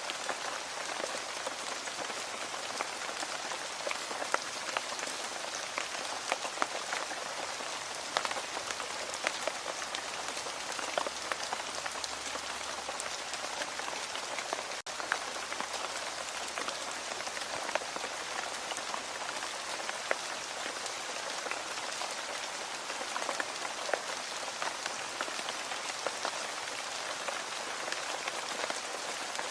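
Steady rain falling on a hard surface, an even hiss full of many separate drop ticks, with a split-second dropout about halfway through.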